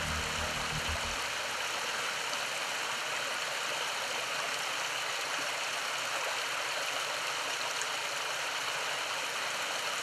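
Creek water spilling over a series of low weirs and small cascades: a steady rush of flowing water. The last of the background music dies away in the first second.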